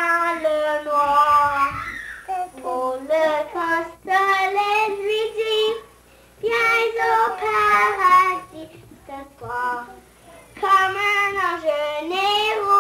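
A young girl singing unaccompanied, in phrases of held notes with short pauses for breath between them.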